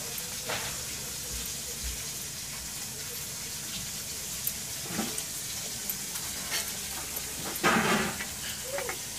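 Rohu fish curry bubbling and sizzling in a metal kadai over a wood fire, with stirring and a few short clicks of a utensil. A short, louder sound comes near the end.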